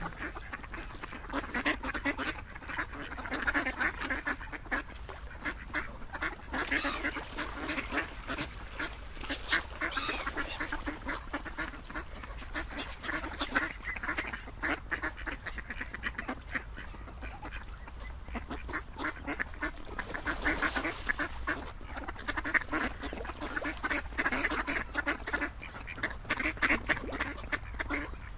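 Ducks quacking continuously, short rapid calls following one another without a pause.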